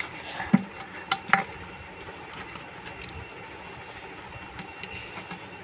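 Crabs shifting in a shallow white plastic basin of water: a few sharp clicks and taps in the first second and a half, then only a low steady hiss.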